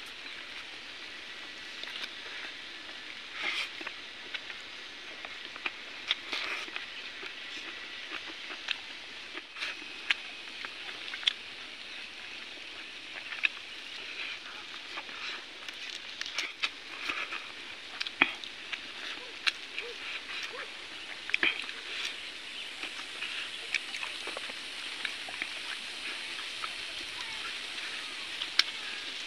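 Close-up eating sounds of chicken eaten by hand: chewing and lip smacking, heard as irregular short sharp clicks over a steady outdoor hiss.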